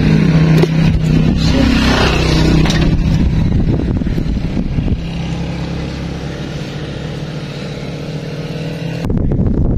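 A motor vehicle's engine running steadily, easing off after about five seconds. It cuts off abruptly near the end, when wind noise on the microphone takes over.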